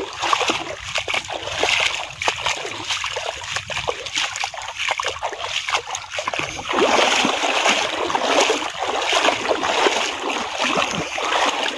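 Legs wading through shallow river water, making a run of repeated splashes and sloshes that get louder about seven seconds in.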